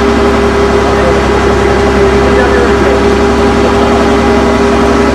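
An engine running steadily, a loud, even drone with a constant hum that neither rises nor falls.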